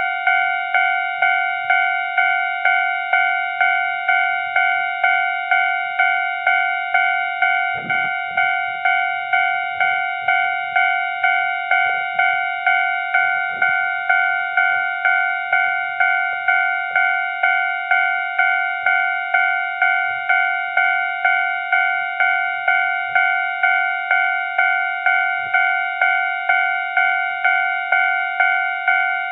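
Railway level-crossing warning bell ringing in a steady repeating pattern, about two strokes a second, each a clear ringing tone that fades before the next; it signals an approaching train.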